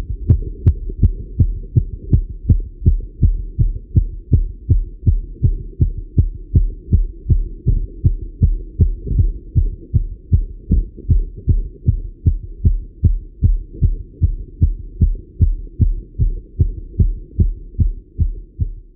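A man's heartbeat heard through a stethoscope, fast and regular, raised by exercise on a bike. A steady low rumble runs underneath.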